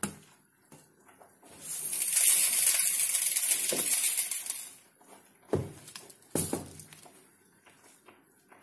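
Dry rice grains pouring from a plastic storage container into a drinking glass: a steady hiss for about three seconds. Two dull knocks follow about a second apart.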